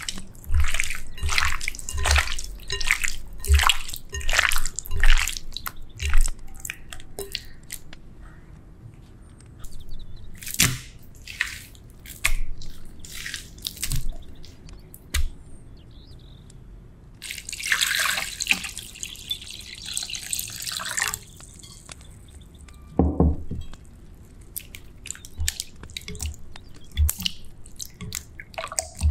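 Hands kneading raw chicken-breast pieces with baking soda in a glass bowl, making quick bursts of wet squelching for the first several seconds. Later, clean water pours into the bowl for a few seconds. Near the end, hands swish and rub the chicken in the water to wash it.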